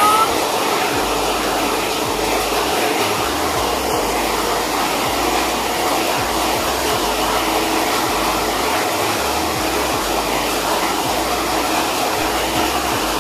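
Heavy rain falling, a steady even hiss loud enough to drown out speech.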